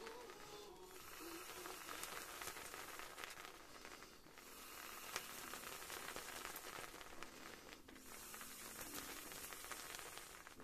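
Air hissing into a large latex balloon as it is inflated, with short pauses about every three to four seconds.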